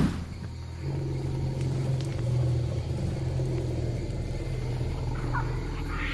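Low, steady rumbling drone that holds at an even pitch, after a sharp thump at the very start.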